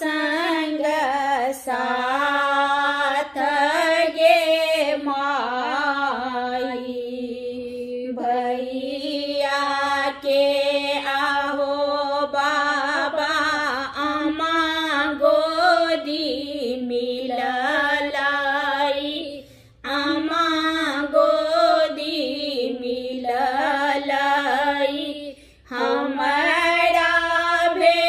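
Two women singing a Maithili wedding folk song without accompaniment, in long drawn-out phrases, with two short breaks for breath in the second half.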